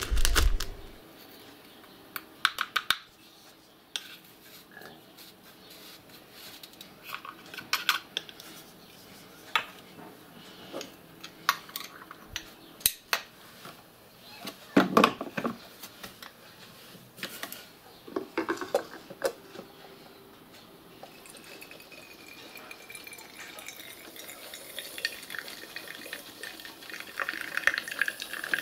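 Clinks and knocks of a spoon, jar and cups as coffee is prepared. About two-thirds of the way in, a steam espresso maker starts to brew, with a steady hiss that grows louder as coffee begins to flow into its glass carafe.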